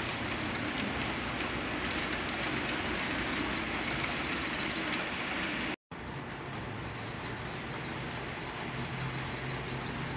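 HO-scale model diesel locomotive running on layout track: a steady whirring and rolling noise. The sound cuts out for a moment just past the middle, then returns with a low hum.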